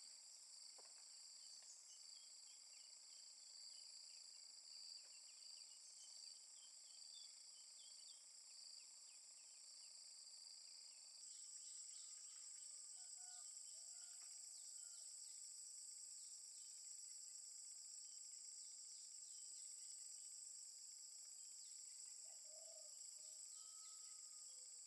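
Faint outdoor insect chorus: a steady high-pitched trilling drone of crickets or similar insects, changing in pitch pattern about eleven seconds in, with a few faint bird calls.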